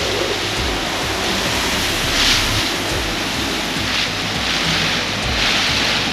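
Typhoon storm wind and heavy rain, a steady rush of noise with gusts swelling several times and wind buffeting the microphone.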